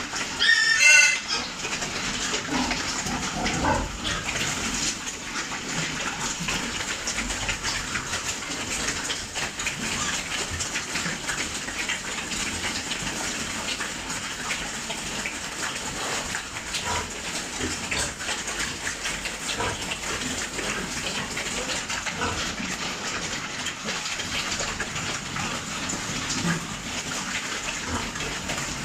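A pig squeals loudly once, about a second in, over a steady rush of water; a few fainter pig sounds follow.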